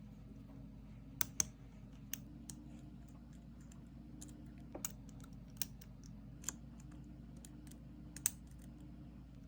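Lob disc shutter lock being picked with a disc detainer pick: scattered, irregular sharp metallic clicks as the discs are turned and set, over a faint steady hum.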